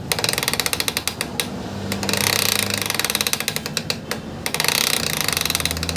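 Royal Enfield Classic's front wheel making a rapid 'tak tak' clicking from a broken speedometer drive (meter pinion), over the steady hum of its single-cylinder engine running.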